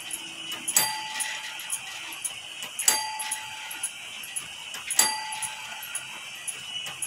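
Meccano clock striking mechanism sounding the hour on its bell as it strikes six o'clock: a single ringing strike about every two seconds, three in full and a fourth at the very end, each ring dying away. Faint clicks of the mechanism come between strikes.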